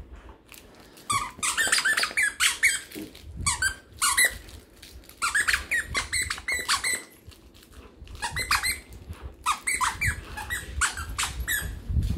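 A plush duck dog toy's squeaker being chewed by a puppy, giving rapid runs of squeaks. The squeaks come in about five bursts with short pauses between them.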